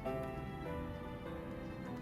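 Soft instrumental background music, gentle sustained notes.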